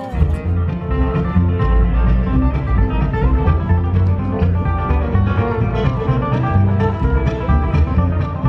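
Acoustic string-band music in a bluegrass style: plucked guitar over a steady bass line.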